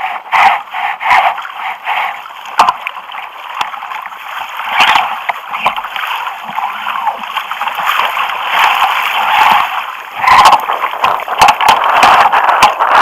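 Sea water splashing and gurgling around a kayak, with irregular sharp knocks and splashes throughout, busiest at the start and again near the end.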